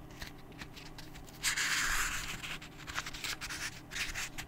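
Paper handling of a book page being turned: a swishing rustle lasting about a second, starting around a second and a half in, surrounded by small clicks and rubbing noises.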